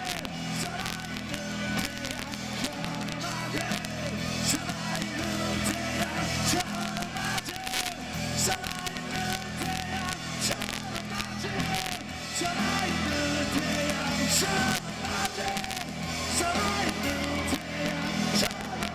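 Live rock band playing loudly through the PA, heard from the audience: a driving drum kit with frequent cymbal hits over bass and amplified instruments.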